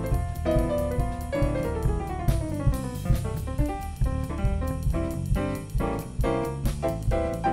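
Live jazz band playing: keyboard, electric bass and drum kit in a steady groove, with a quick falling run of notes about a second and a half in.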